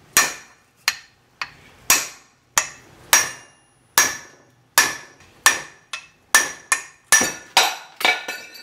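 Hammer blows on a steel socket used as a drift against a Ford Festiva front hub clamped in a vise, driving the hub out through its wheel bearing. About fifteen sharp metallic strikes come roughly two a second, each with a brief ring.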